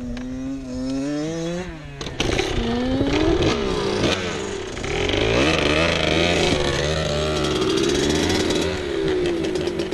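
Honda CR500's single-cylinder two-stroke engine running up close and being revved, its pitch rising and falling, with a second dirt bike running alongside; the sound gets louder about two seconds in. The CR500 won't hold an idle, which the rider puts down to the weather or to the engine being badly loaded up.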